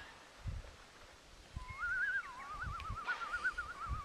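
A long whistle that wavers quickly up and down in a rapid warble, starting about halfway through. Scattered low thumps sound under it.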